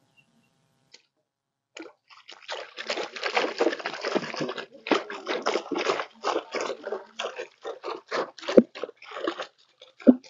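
Water splashing and sloshing as a collapsible ring-framed net trap is hauled up out of the pond at the side of a small boat. It starts about two seconds in and goes on in irregular surges.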